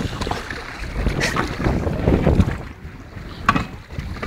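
River water rushing and sloshing around a rafting boat, with wind buffeting the phone's microphone and a few short splashes.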